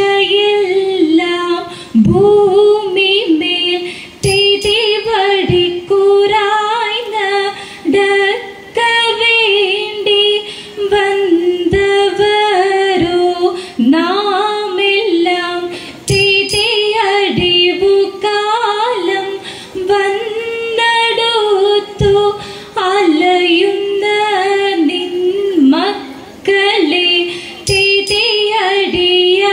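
Women's voices singing a Margamkali song unaccompanied, one melodic line in short phrases with brief breaths between them.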